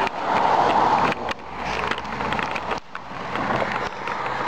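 Wind rushing over the microphone of a handheld camera on a moving bicycle, rising and falling, with short dips about a second in and near three seconds. Bumps and rustles of the camera being handled run through it.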